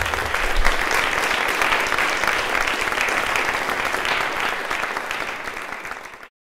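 Audience applauding: dense clapping that eases slightly toward the end and then cuts off suddenly.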